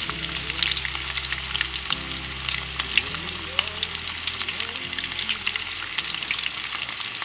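Food frying in hot oil in a pan, a continuous sizzle with many small crackles and pops.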